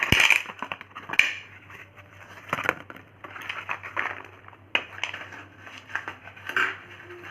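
Dry, brittle crunching and crackling of baked-clay 'mitti' pieces: a sharp snap at the start, then irregular crunches.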